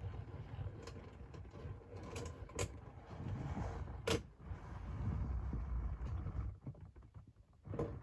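Handling noise inside a clear plastic glove box: rubber gloves rubbing and knocking against the plastic over a low rumble, with several sharp clicks of plastic petri dishes and lids, the loudest about four seconds in.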